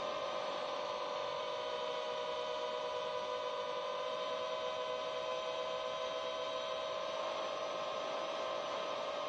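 7-inch long-range FPV quadcopter's motors and propellers whining at a steady pitch while the quad flies itself in GPS Rescue mode.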